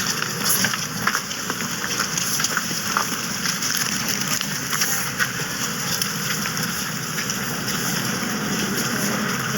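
Steady hiss of storm precipitation, with many faint ticks of it striking surfaces.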